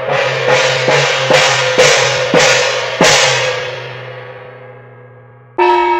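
Chinese percussion ensemble of gongs and cymbals: seven crashing strikes about two a second, the last one, about three seconds in, left to ring and fade. Near the end a pitched gong is struck once and rings with clear steady tones.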